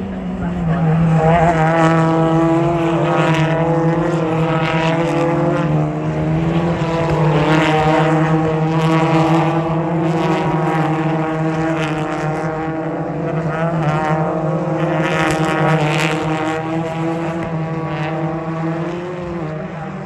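A pack of British Touring Car Championship cars racing past, their turbocharged two-litre four-cylinder engines blending into one loud, steady drone with a wavering whine above it. The sound swells about a second in and holds.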